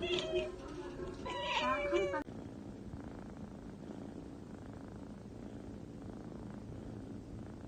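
A cat meowing twice, calls that bend up and down in pitch, cut off abruptly about two seconds in; after that only a faint, steady low background sound.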